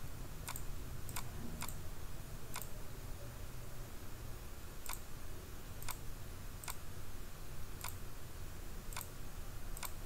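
Computer mouse clicking about ten times at uneven intervals, over a low steady hum.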